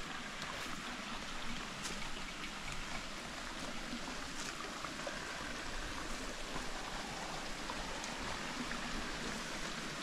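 Shallow stream running over rock ledges: a steady wash of trickling water, with a few faint clicks now and then.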